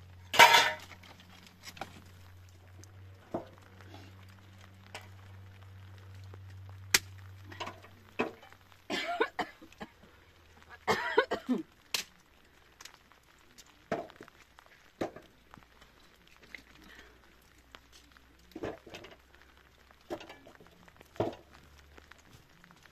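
Scattered clinks and knocks of metal cooking utensils, the loudest about half a second in, over a faint steady low hum.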